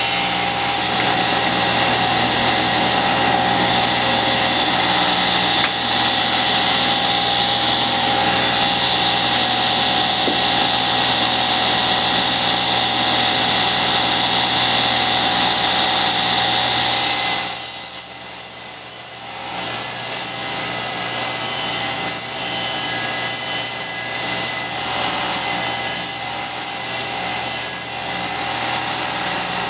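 Cabinet table saw running steadily while wood boards are fed through the blade along the rip fence, ripping them into narrow strips. A bit past the middle the sound briefly thins and changes pitch, then settles again.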